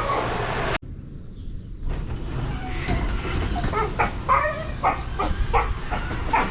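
German shorthaired pointer barking in a quick run of about nine short barks through the second half, alarm barking at the garage door. Before that, a steady noise cuts off abruptly under a second in.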